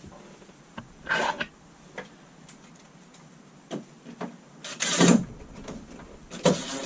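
Handling noises from fastening a wall switch plate: short scraping rubs and a few sharp clicks, with the louder scrapes about a second in, around five seconds in and near the end.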